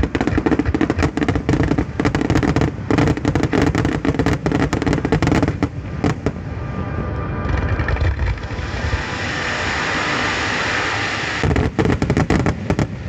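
Starmine fireworks barrage: rapid volleys of sharp shell bursts and booms, giving way about halfway through to a few seconds of dense, continuous crackling, then a last flurry of sharp bangs near the end.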